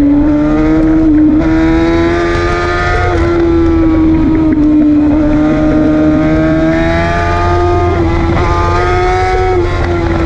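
Sport motorcycle engine running hard at high revs, its pitch climbing and easing several times with the throttle through the curves, over a steady low rush of wind.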